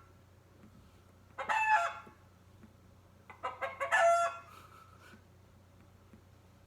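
Hen calling: two loud calls, about a second and a half in and again around three and a half seconds in, the second a quick run of short notes ending in a longer note.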